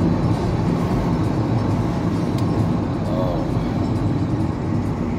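Steady engine and road noise of a moving car, heard from inside the cabin.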